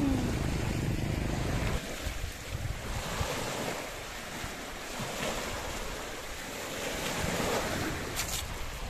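Small sea waves washing onto the shore, with wind buffeting the microphone as a heavy rumble for the first couple of seconds, and a brief scratchy noise near the end.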